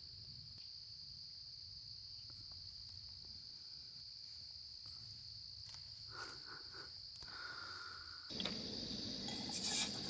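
Faint, steady high-pitched trilling of crickets. About eight seconds in, the steady hiss of a canister gas camp stove's burner cuts in over it.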